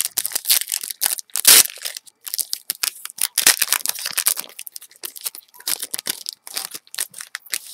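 A foil 2008 Upper Deck Timeline baseball card pack being torn open and its wrapper crinkled in the hands: a run of sharp crackling rustles, the loudest tear about a second and a half in.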